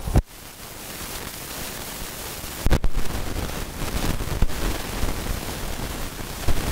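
Steady hiss of static-like noise that swells gradually over the first seconds, with a sharp thump just after the start and another near three seconds in.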